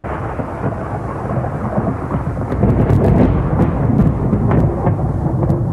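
A thunderstorm: steady rain with thunder, starting suddenly and growing louder about two seconds in.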